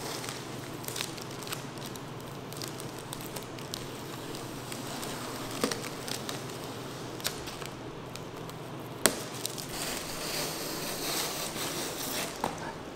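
Masking tape being peeled off car paint and trim and bunched up in the hand, crackling and crinkling with many small clicks, and one sharper snap about nine seconds in.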